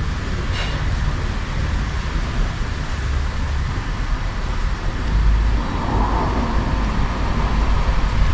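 Steady road and engine noise of a moving car: a constant low rumble with a hiss over it.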